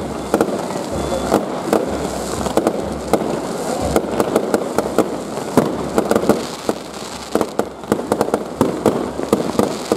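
Firecrackers going off in a rapid, irregular string of sharp pops and bangs, a few louder than the rest.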